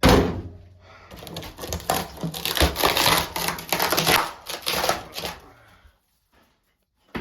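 Rotten, termite-eaten wood being broken out of a wall: a sharp knock, then a few seconds of dense crunching and crackling as the crumbly wood splinters and breaks away, tailing off near the end.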